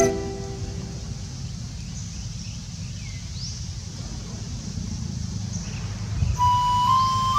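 Outdoor background noise, a steady low rumble, with a couple of faint bird chirps. Music with a simple melody comes back in near the end.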